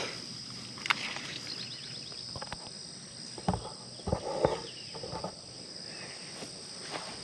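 Steady high-pitched drone of an insect chorus, with a few short rustles and knocks from handling garden plants, the loudest a cluster of them about four seconds in.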